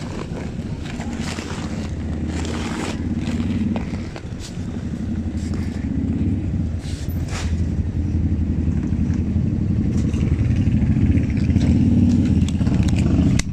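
Motorcycle engine running steadily at low speed, a low hum that grows slightly louder over the stretch, with a few short knocks and rubbing sounds scattered through it.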